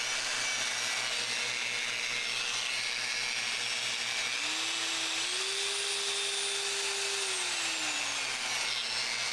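Bosch GWS 9-125 S variable-speed angle grinder, freshly fitted with a new armature, running free with no disc on. Its motor whine steps up in pitch twice about four and five seconds in, holds, then slides back down before the end.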